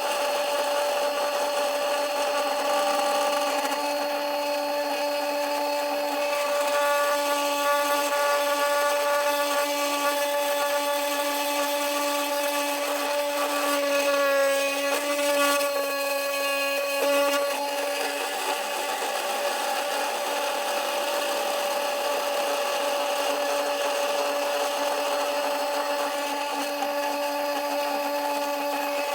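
CNC 3018 Pro router's spindle running with its cutter milling an aluminium plate: a steady motor whine under a scraping cutting noise, the pitch wavering briefly about halfway through.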